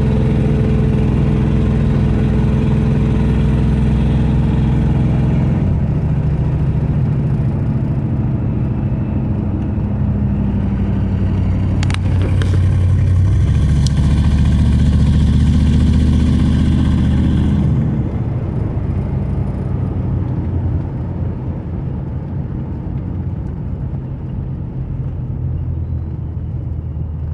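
A 4.6-litre V8 that has been misfiring on cylinders 7 and 8 runs under way with road noise. Its engine note drops about six seconds in, rises again for a few seconds, and drops once more near eighteen seconds. There are a couple of sharp clicks around twelve seconds.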